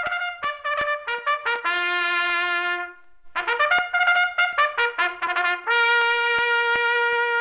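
Solo trumpet playing a short tune in two phrases. Each phrase is a quick run of short notes that ends on a long held note, and the second held note runs to the end.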